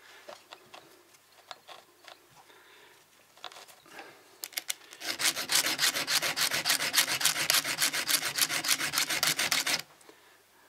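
A small round needle file rasps in rapid, even back-and-forth strokes across a cutting tooth of a mini chainsaw's chain, sharpening it. About halfway in, light clicks and scrapes give way to the strokes, which run for about five seconds and stop suddenly.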